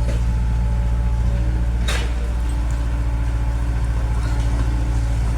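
Excavator's diesel engine running steadily with a deep, even hum. One short, sharp burst of noise cuts in about two seconds in.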